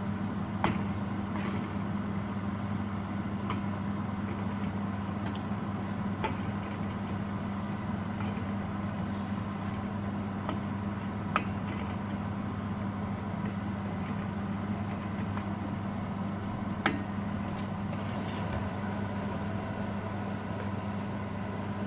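A metal spoon clinks and scrapes against a stainless steel pan a few times, with three sharper clicks standing out. Under it runs a steady low hum.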